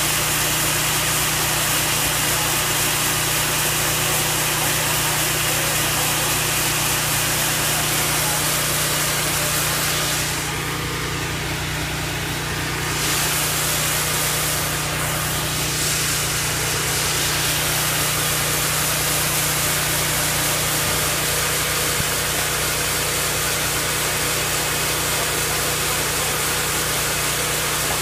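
Portable sawmill's engine running steadily, a constant machine hum under a dense hiss. The sound drops slightly for a few seconds about ten seconds in, then returns to the same level.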